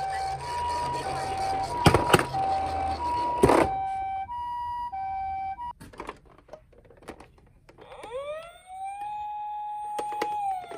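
Toy ambulance minicar's electronic two-tone siren alternating between two pitches about once a second, over a low rumble, with sharp knocks about 2 and 3.5 seconds in. It cuts off near 6 seconds. After a few clicks, a second toy siren winds up from about 8 seconds, holds one wailing tone, and starts to fall near the end.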